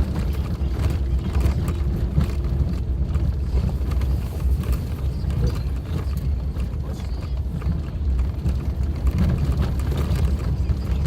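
Suzuki Jimny driving on an unpaved forest road: a steady low rumble from the engine and tyres, broken by frequent short knocks and rattles from the rough surface.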